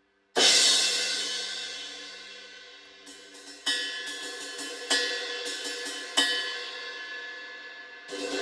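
Zildjian A Custom 19-inch brilliant-finish crash cymbal struck and left to ring out, its wash slowly dying away, then struck three more times with lighter cymbal taps in between. Near the end the cymbal sound swells up again.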